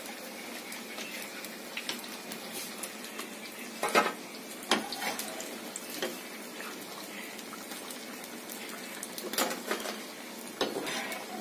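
Gram-flour-battered brinjal slices frying in hot oil in a pan, a steady sizzle, with about five sharp clinks of metal tongs on the pan and plate as the fried pieces are lifted out, the loudest about four seconds in.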